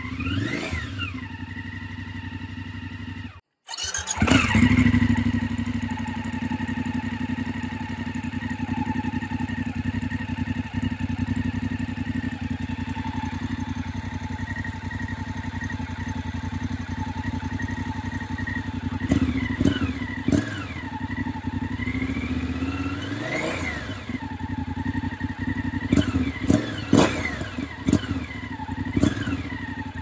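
BMW F750GS/F850GS parallel-twin engine breathing through an Akrapovič slip-on silencer. After a short break about three and a half seconds in, it starts with a loud flare and settles into a steady idle. In the second half it is revved several times: one slow rise and fall and a few quick blips. Before the break the same engine runs on its stock silencer.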